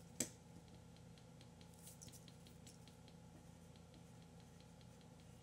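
Faint scratching of a pen writing on a paper sheet, a series of short strokes, after one sharp click just after the start.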